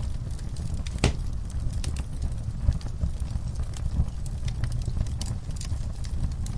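Log fire burning in a fireplace: a steady low rumble of flames with frequent sharp crackles and pops, one louder pop about a second in.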